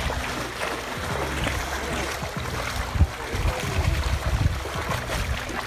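River water running, a steady rushing noise, with a single knock about three seconds in.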